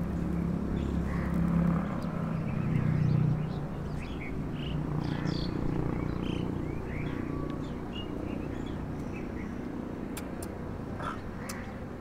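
An engine running steadily with a low hum, loudest in the first few seconds and then easing off, with scattered short bird chirps over it.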